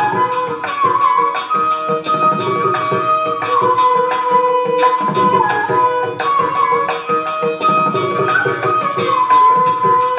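Background music of Indian classical style: a flute melody over tabla drumming.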